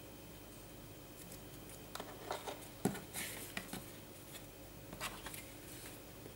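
Hands handling grey chipboard pieces and a glue tube on a tabletop: scattered light taps, scrapes and rustles from about a second in to near the end, with one sharper knock about three seconds in.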